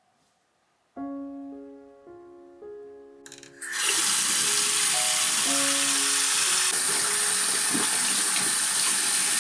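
Water running from a bathroom sink tap into the basin. It starts about four seconds in and runs steadily, with hands being washed under the stream.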